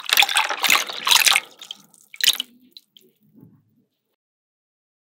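Water and goldfish poured from a plastic bag into a small glass fish tank: a splashing pour that tails off after about a second and a half, one more short splash a little after two seconds, then a few faint drips.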